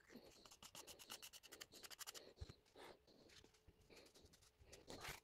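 Faint scratchy scraping of a wooden stick stirring ready-to-use filler in a plastic tub: a quick run of strokes for about two seconds, then scattered softer scrapes and a sharper crackle near the end.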